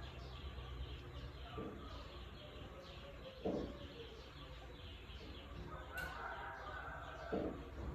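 Birds chirping over and over in quick, short falling notes, with a few brief lower calls in between.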